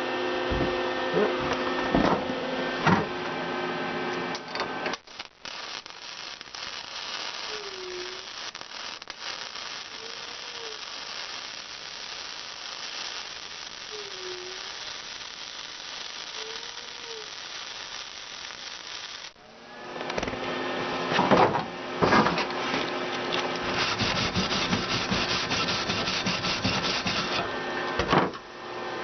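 MIG welder arc crackling steadily as a bead is run in a crescent weave, on a Lincoln Power MIG 180 Dual. The crackle stops about five seconds in, leaving a faint hiss for about fifteen seconds, then starts up again.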